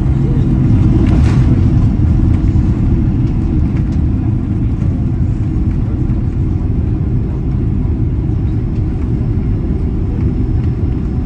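Steady low rumble of a Boeing 767-200 rolling out on the runway after landing, heard inside the cabin: engine and wheel noise, a little louder in the first few seconds and then easing as the jet slows.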